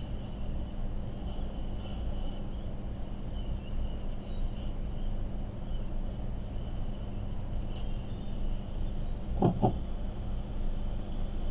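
A steady low electrical hum with background noise and faint bird chirps over it, and two short low sounds in quick succession about nine and a half seconds in.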